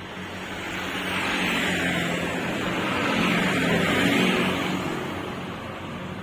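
A motor vehicle passing by: its noise builds over the first second or so, stays loudest through the middle and fades away near the end, over a steady low hum.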